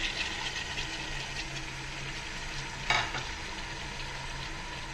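Chopped tomatoes and ginger-garlic paste sizzling in hot oil on browned mutton and onions in a pressure cooker, with one sharp clack about three seconds in.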